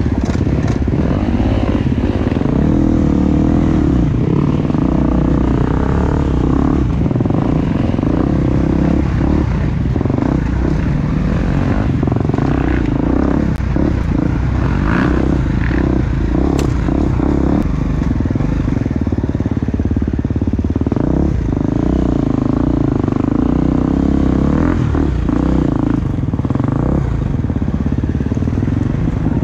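Gas Gas 350 four-stroke single-cylinder enduro motorcycle running hard on a dirt trail, its revs rising and falling repeatedly with the throttle. A few sharp clicks occur near the middle.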